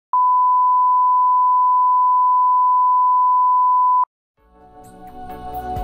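A steady test tone at a single pure pitch, held for about four seconds and cut off sharply. After a brief silence, music with sustained notes fades in near the end.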